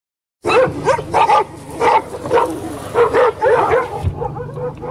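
A pack of dogs barking, many loud barks in quick succession that start abruptly about half a second in and give way to fainter barking about four seconds in, over a car's steady low engine hum.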